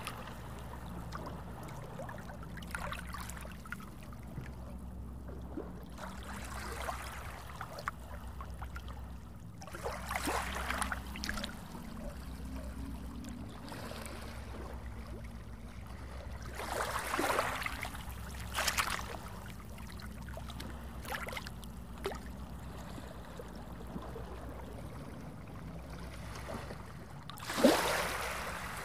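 Small sea waves lapping onto a sandy beach, each wash rising and falling away, the largest near the end. A low steady hum runs underneath.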